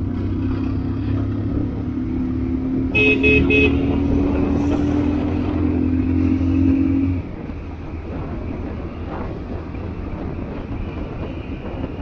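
Three quick horn toots about three seconds in, over the steady drone of a running engine whose pitch creeps up slowly, until the drone stops abruptly about seven seconds in.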